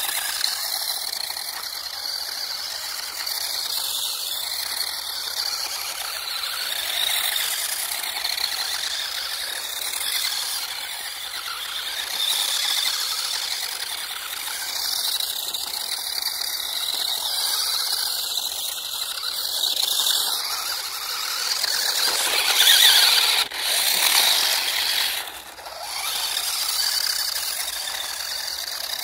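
Electric radio-controlled drift car running on three lithium-ion cells, its motor whining and tyres skidding as it drives and slides. The high-pitched sound swells and fades every few seconds, is loudest near the end, and then dips sharply for a moment.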